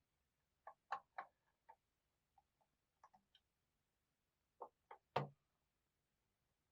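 A few faint, scattered clicks and taps of a small T5 Torx screwdriver undoing the tiny screws under the covers on a laptop's bottom case. The loudest click comes about five seconds in.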